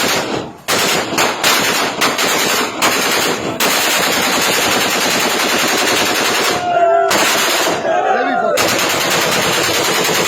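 Celebratory gunfire from several guns at once: separate volleys at first, then a long run of rapid automatic fire. The firing stops for a couple of seconds near the middle, where men shout, then picks up again and runs on.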